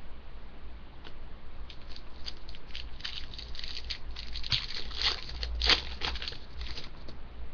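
Crinkling and rustling of a trading card pack's plastic-foil wrapper being handled and torn open, in a quick irregular run of crackles that grows busier midway and peaks briefly near the end.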